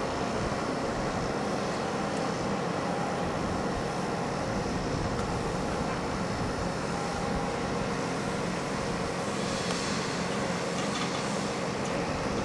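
Steady vehicle noise: an even rush with a low hum and a few faint held tones, unchanging throughout.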